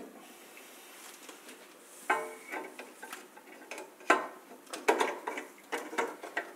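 Metal amplifier-kit parts knocking and clinking against each other as they are handled and fitted together. It is quiet at first, then from about two seconds in comes a string of sharp knocks, several with a short ringing tone.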